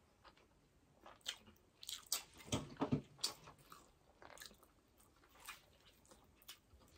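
Close-miked mouth sounds of eating burger steak in mushroom gravy by hand: chewing with short wet clicks and lip smacks, busiest in the middle and sparser toward the end.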